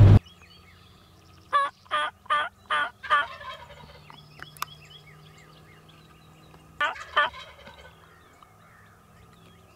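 Rio Grande wild turkey calling: a quick series of five loud, wavering notes, then two more a few seconds later, echoing in the open.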